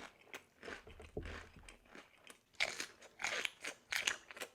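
A person biting and chewing a crunchy jalapeño Takis and cream cheese snack close to the microphone. Irregular crunches are soft at first and grow louder in the second half.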